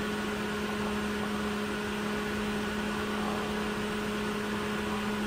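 Perkins 4.108 diesel engine being cranked on its starter motor without firing, a steady even whine. The injection pump stays off until oil pressure builds, and the cold, thick oil of the long-idle engine makes the pressure slow to come up.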